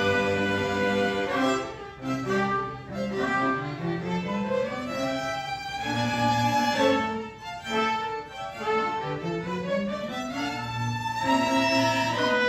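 Live chamber ensemble of violins, cello and double bass playing a classical-style piece. The phrases ease off briefly about two seconds in and again around seven seconds, with a rising line of low notes in between.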